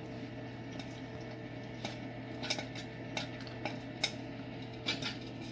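Vintage-style popcorn machine running, its motor-driven stirrer turning kernels in the hot oil of the metal kettle with a steady hum. Scattered sharp clicks and clinks come from the kettle from about two seconds in, as the kernels near popping.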